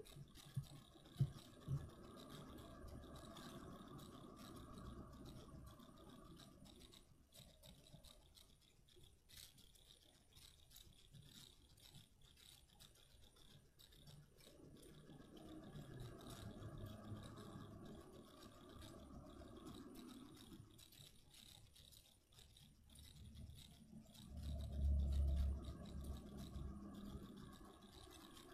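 Homemade slime being squeezed and worked in the hands, faint squishing and sticky handling sounds coming in three spells, with a few clicks in the first two seconds and a louder low bump near the end.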